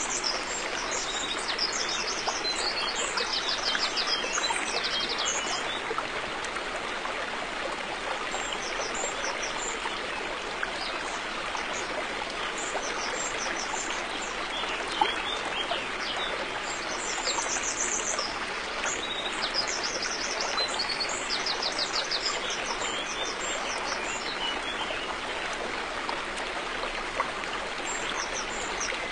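A river flowing with a steady rushing sound. Small birds chirp in quick high runs several times over it.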